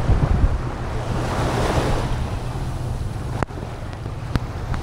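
Small waves washing on a sandy bay shore, with wind rumbling on the microphone. Two sharp clicks come near the end.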